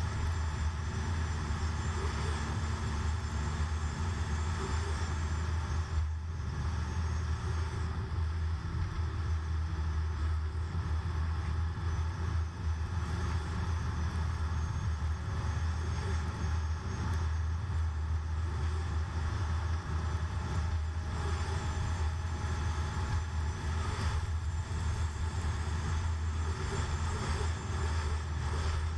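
Car driving along a highway, heard from inside the cabin: a steady low engine drone under even tyre and road noise.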